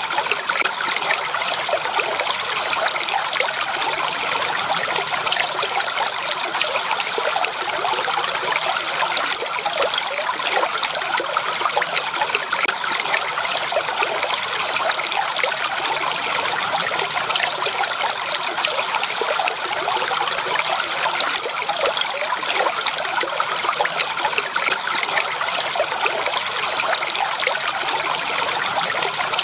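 A small stream of water trickling and babbling over stones, a steady bright gurgle with little low rumble and no change throughout.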